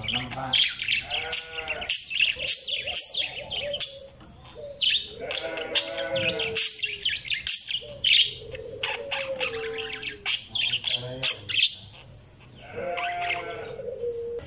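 Parakeets chirping and warbling together: sharp, high chirps and clicks over lower, wavering chatter, with two brief lulls.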